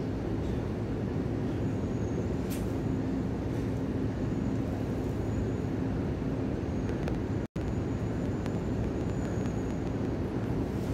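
Steady low mechanical drone with a hum. It cuts out for an instant about seven and a half seconds in.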